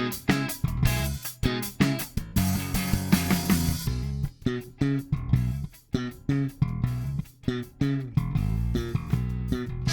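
Lakland Skyline 55-02 five-string electric bass with active electronics and MM plus J pickups, played in a brisk run of sharply plucked notes with bright, clicky attacks.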